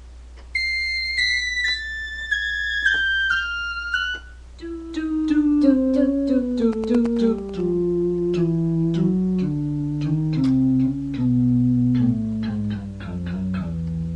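Digital piano playing single notes that step down in pitch: a high run for the first few seconds, then from about four and a half seconds in a longer run descending into the bass, stopping abruptly at the end. A steady low hum sits underneath.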